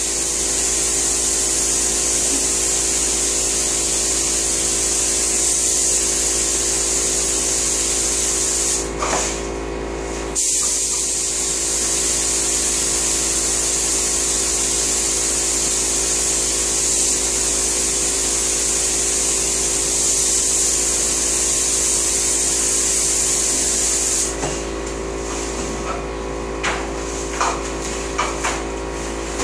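Spray gun hissing steadily as it lays the last top coat of finish on kitchen cabinets, with a short break about nine seconds in and stopping for good near the end, followed by a few light clicks. A steady hum runs underneath throughout.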